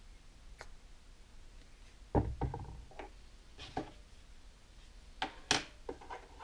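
Scattered knocks and light clicks of things handled on a wooden workbench: a plastic glue bottle set down and small wooden box parts picked up and moved. The deepest, loudest knock comes about two seconds in, and sharp clicks follow a little after five seconds.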